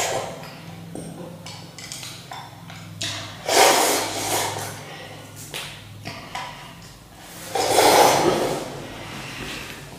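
A boy slurping instant noodles and broth from a porcelain bowl: two long, loud slurps a few seconds apart, with a few light clinks of the utensils against the bowl.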